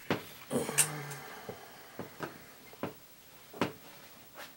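Handling noises from hands working at a small terrarium: a cluster of rustling and light taps about half a second to a second in, then about five sharp, irregularly spaced clicks.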